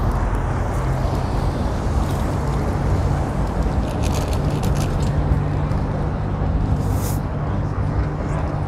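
Steady wind rush and rolling noise picked up by a GoPro's microphone on a moving bicycle, with a few faint clicks about four to five seconds in and a brief hiss near seven seconds.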